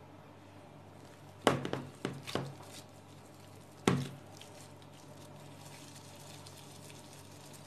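Gloved hands handling bread dough and a plastic bowl: a few light knocks and rustles, a cluster of them about a second and a half in and a sharper single tap about four seconds in, over a faint steady low hum.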